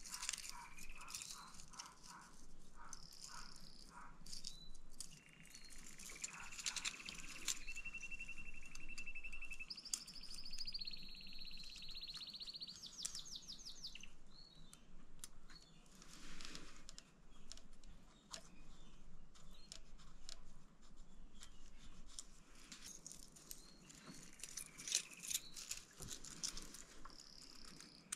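Small clicks and rattles of hands handling parts in the intake area of a KTM 690 SMC, with birds chirping and trilling in the background, including a longer trill near the middle.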